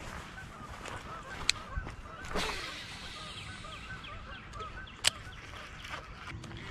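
Geese honking over and over in the background. A baitcasting rod is cast with a whoosh about two and a half seconds in, and two sharp clicks, about a second and a half and five seconds in, are the loudest sounds.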